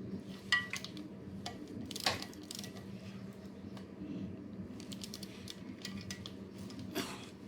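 Hand tools and small metal parts clinking and clicking, a handful of sharp knocks with a brief metallic ring on the first, over a steady low hum.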